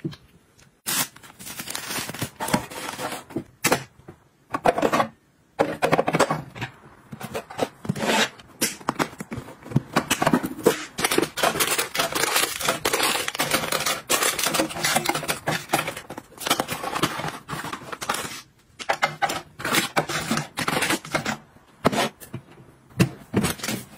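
Household restocking handling sounds: plastic-wrapped packets rustling and crinkling, with many quick clicks and taps as items are set into plastic and acrylic organizers and onto cabinet shelves. There are brief pauses about five seconds in and again near nineteen seconds.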